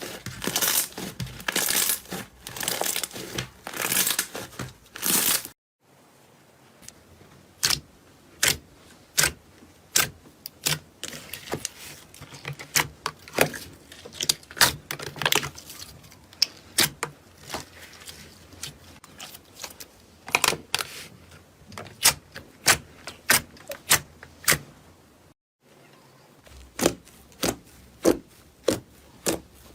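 Slime being squeezed and worked by hand: a dense crackling, crinkly sound for the first five seconds or so, then a long run of sharp clicks and pops, some coming in quick clusters.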